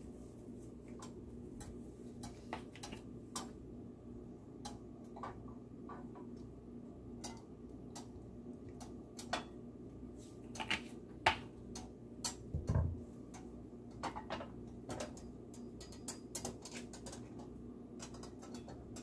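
Faint, irregular small clicks and ticks from a hot non-stick frying pan as cooking oil goes in and warms, over a steady low hum. The clicks are busiest a little past halfway, and there is one dull knock about two-thirds of the way through.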